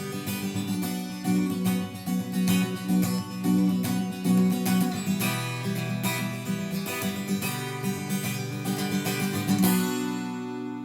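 Acoustic guitar strummed briskly through an instrumental passage, stopping about ten seconds in on a final chord that is left ringing and fading.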